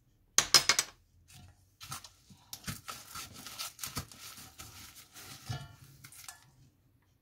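A few sharp clicks about half a second in, then a plastic-gloved hand rubbing and squishing a seasoning paste around a stainless steel bowl: irregular soft scrapes and crinkles of the glove against the metal.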